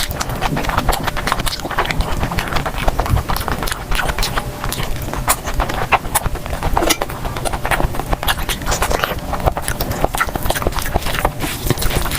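Close-miked eating sounds: chewing with a dense, irregular run of sharp mouth clicks and smacks.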